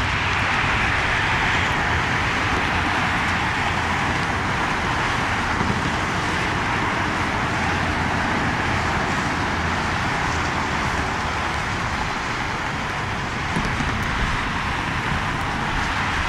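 Jet aircraft engine noise: a steady rushing sound, a little louder in the first couple of seconds.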